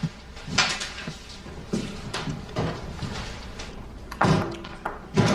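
A handful of separate knocks and clatters of objects being handled, the loudest about four seconds in.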